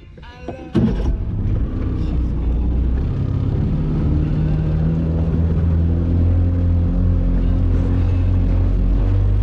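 Boat's outboard motor starting up about a second in, then running steadily as the boat gets under way.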